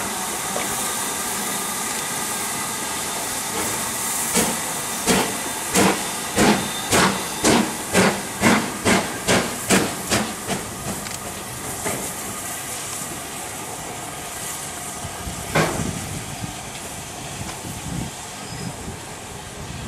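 LMS Black Five 4-6-0 steam locomotive hissing steam as it stands, then starting away: about four seconds in its exhaust beats begin, roughly two a second and quickening, and fade as it draws off. One more lone sharp beat comes near the end.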